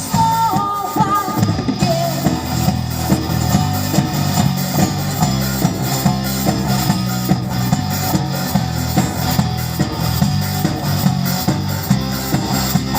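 Live rock band playing with electric guitar, bass and drum kit, keeping a steady beat.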